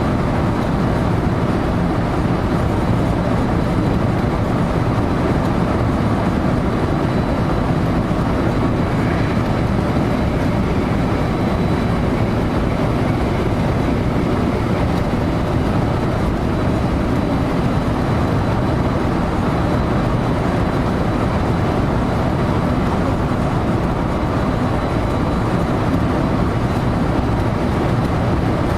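Steady running noise of a JR local electric train, heard from inside the front car, with a faint thin high whine above it.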